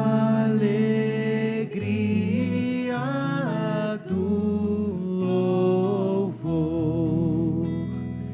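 Slow devotional hymn: a singing voice holding long notes, some with vibrato, in phrases of about two seconds over steady instrumental accompaniment.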